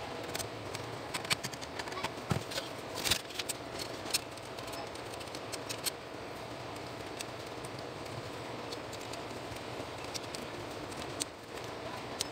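Small metal clicks and taps from an Epson TM-U220 printer's sheet-metal frame and parts being handled and fitted back together with a screwdriver, most of them in the first six seconds, over a steady background hum.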